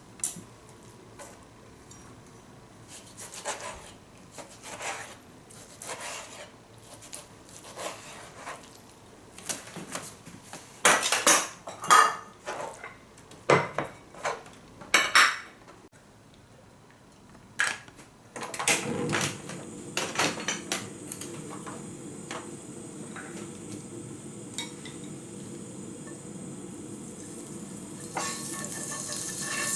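Kitchen prep clatter: dishes, a glass plate and utensils knocking and clinking on a cutting board and counter, loudest about halfway through. Then a steady hiss from the stove sets in, and near the end sliced pork starts sizzling in hot oil in a frying pan.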